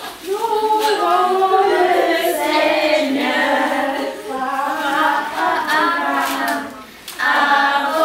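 A group of children and women singing together a cappella in held, gliding notes, with a short break about seven seconds in.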